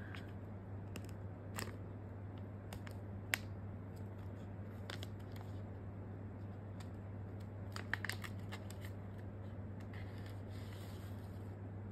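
Soft rustling and scattered light clicks from a sealed mask sachet being opened and a folded film sheet being handled and unfolded. One sharper click comes about three seconds in and a small cluster of them near eight seconds, over a steady low hum.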